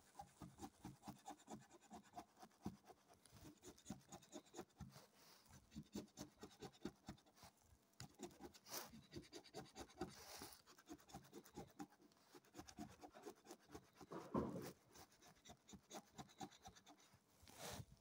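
A coin scratching the silver coating off a Gratta e Vinci scratch card in quick, repeated strokes, with a louder scrape a little past the middle.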